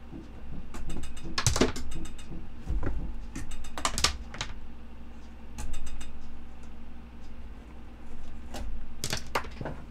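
Patch-cable plugs being pulled from and pushed into the jacks of a DIY modular synthesizer, with the cables rattling against the panels. These come as irregular clusters of sharp clicks over a low steady hum.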